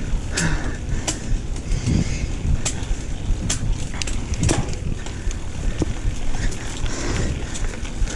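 YT Jeffsy mountain bike climbing a dirt trail: a steady rumble of tyres and wind on the helmet camera, broken by irregular sharp clicks and knocks from a drivetrain whose rear derailleur the rider says is acting up.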